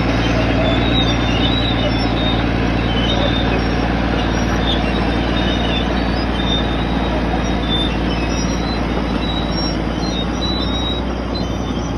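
1956 Caterpillar D9 crawler dozer's six-cylinder diesel engine running steadily under load, with short high-pitched squeaks scattered throughout.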